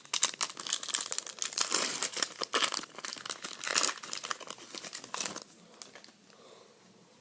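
Foil trading-card pack wrapper being torn open and crinkled by hand, a dense crackling that dies away about five and a half seconds in.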